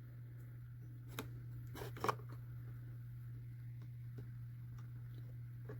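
A few light clicks and taps of pliers and small copper earrings against a dish as they are lifted out of a cleaning bath, the loudest pair about two seconds in, over a steady low hum.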